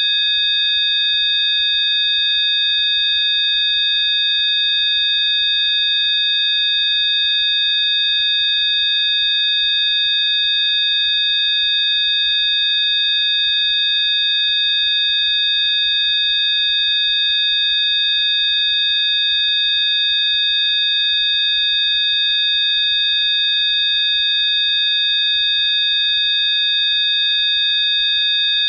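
Electronically generated Rife therapy frequencies: several high, pure sine tones sounding together, held perfectly steady without any change.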